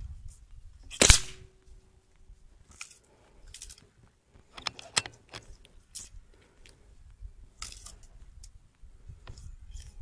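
A single shot from an AF500 PCP air rifle about a second in, a sharp crack followed by a faint ringing tone. After it come scattered small clicks and knocks as the rifle is handled.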